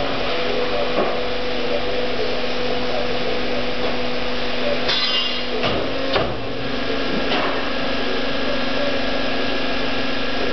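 Tube bending machine running with a steady hum, with a few sharp clicks and knocks as it works the metal tube, several of them close together about halfway through.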